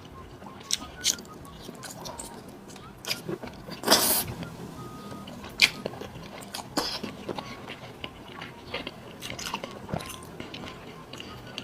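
Close-miked chewing and biting of seafood: wet chewing broken by many short sharp clicks and crunches, with one louder bite about four seconds in.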